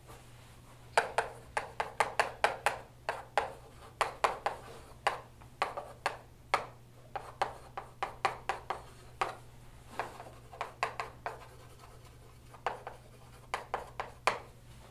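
Chalk writing on a blackboard: a quick, uneven run of taps and short scrapes as the letters go down, starting about a second in, with a brief pause near the end before a few more strokes.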